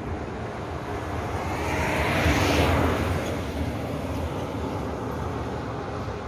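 A road vehicle passes close by: its noise swells to a peak about two and a half seconds in, then fades away, over a steady low rumble.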